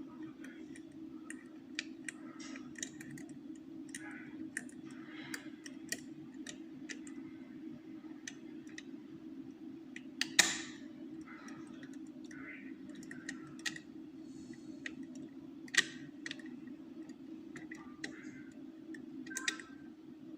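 Lever lock picks and a tension tool clicking and scraping inside an ERA 5-lever curtained lock as the levers are worked, in an irregular run of small metal clicks with three louder clicks in the second half. A steady low hum runs underneath.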